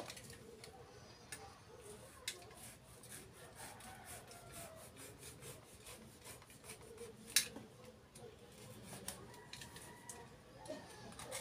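Hands handling a coconut-shell bonsai pot: light rubbing and scraping with scattered soft clicks, and one sharper click about seven seconds in.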